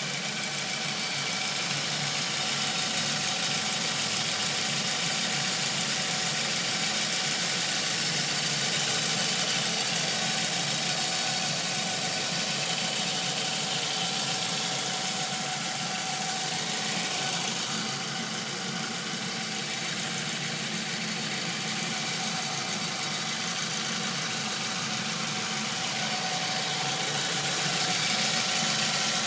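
2006 Ford Focus C-Max 1.8 petrol engine, an inline four-cylinder, running steadily with a strange noise the owner is asking about.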